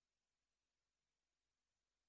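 Near silence: the sound track is essentially empty, with no audible sound.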